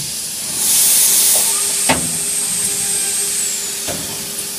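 CNC wood router running with a steady hiss and a high whine that drops in pitch about three and a half seconds in, with two sharp clicks.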